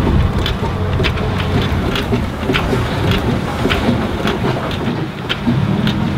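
John Fowler steam traction engine running, its motion turning, with a regular sharp click a little under twice a second over a steady low rumble.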